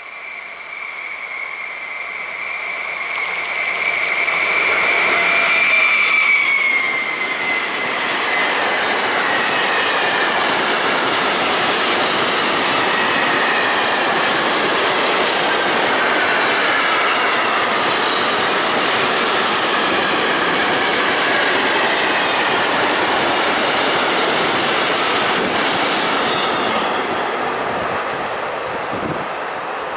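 A locomotive-hauled freight train of tank wagons passing close by. A high steady whine drops in pitch as the locomotive goes past, and the loudness peaks there. A long run of rolling wagon wheels follows, with squealing, and fades away near the end.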